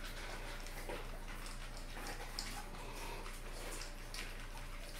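A puppy eating dry kibble from a bowl: irregular crunching and small clicks of kibble and teeth against the bowl.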